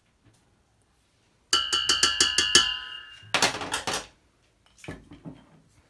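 Metal kitchen utensils clinking against a stainless steel mixing bowl: a quick run of about six sharp ringing taps, then a short rattling clatter, and a couple of softer knocks near the end.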